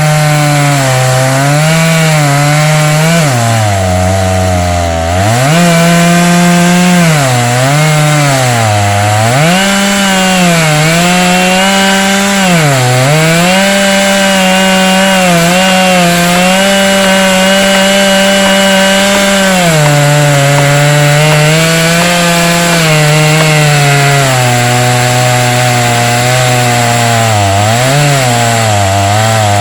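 Chainsaw on an Alaskan chainsaw mill running at high revs under load, ripping lengthwise through a log to cut a plank. The engine pitch sags again and again as the chain bogs in the cut and then recovers, dropping deepest about four to five seconds in.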